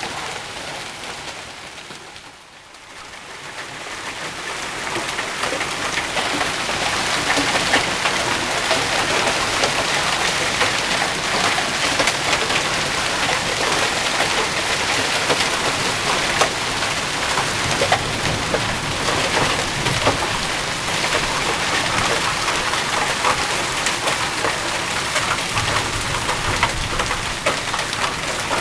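Heavy rain and hail pelting the ground: a dense steady hiss with many sharp ticks of hailstones striking. It fades briefly about two seconds in, then builds back up and holds.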